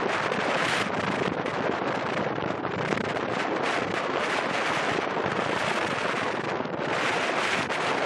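Wind buffeting the microphone: a steady rushing noise that swells and dips, brightest near the end, over choppy sea water.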